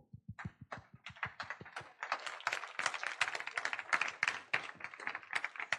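Audience applauding, fairly faint: a few scattered claps that thicken into steady applause about two seconds in, then thin out near the end.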